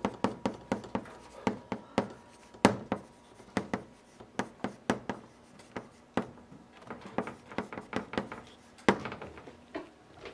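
Chalk writing on a blackboard: a quick, irregular run of sharp taps and short scratches as the strokes go down, several a second, with brief pauses between characters.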